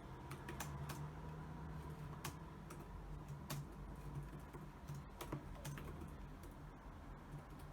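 Typing on a computer keyboard: irregular key clicks at an uneven pace, over a low steady hum.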